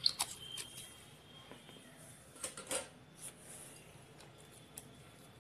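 Scattered light clicks and taps of a utensil against a glass of cake batter, with two louder clicks about two and a half seconds in.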